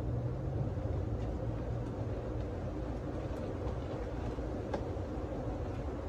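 Honey bees buzzing as a steady, dense low hum from a swarm disturbed while being knocked into a cardboard box.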